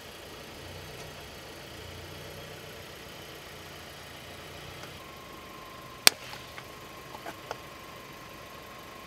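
A liquid-filled balloon bursts under a slowly rolling car tyre with one sharp, loud pop about six seconds in, followed by a few small splashes. Beneath it the car's engine idles steadily.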